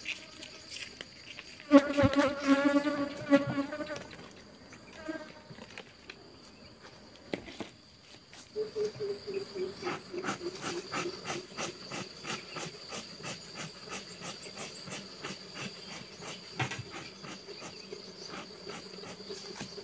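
Honeybees buzzing around an open hive. One passes close about two seconds in, loud and briefly, and a steady buzz sets in from about eight seconds on. A few light knocks are heard along the way.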